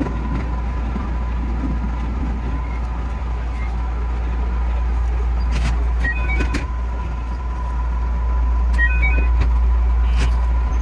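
221 series electric train running, heard from the driver's cab: a steady low rumble and running noise with a faint steady tone, a few sharp clicks, and two brief clusters of short high beeps.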